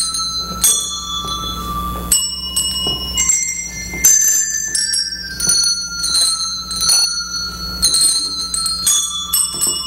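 A set of coloured children's handbells played one note at a time as a simple tune. Each bell rings out and hangs on under the next, with new notes coming about every half second to second.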